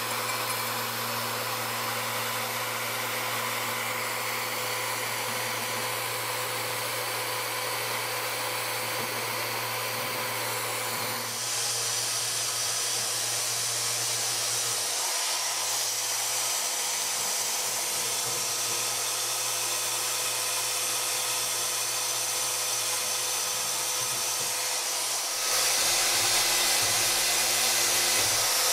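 Festool Rotex RO 90 sander running steadily with its triangular delta pad, sanding into the corners and slats of a wooden chair. The tone changes about 11 seconds in, and it gets louder near the end.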